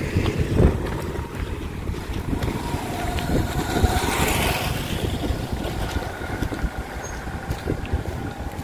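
A motorcycle passes close by about halfway through, its engine swelling and then fading, over a steady low rumble.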